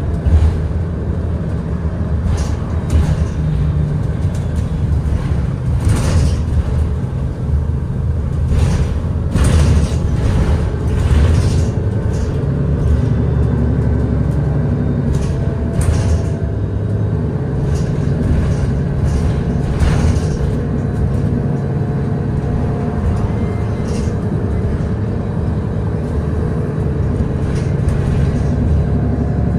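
Cabin noise of a Nova Bus LFS hybrid transit bus under way: a steady low drone from the drivetrain, with scattered short rattles and knocks from the body over the road.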